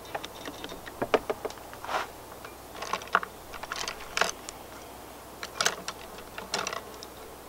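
Light, irregular clicks and clatter of painting gear being handled, coming in several small clusters.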